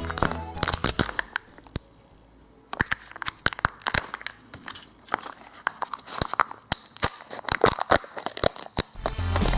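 Foil wrapper of a chocolate surprise egg being torn and crinkled open by hand: a run of irregular crackles and rustles, with a short pause early on.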